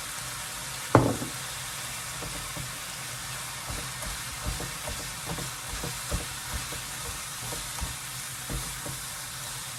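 Food sizzling in a frying pan with a steady hiss. A sharp clatter comes about a second in, then irregular light taps of a utensil against the pan as the food is stirred.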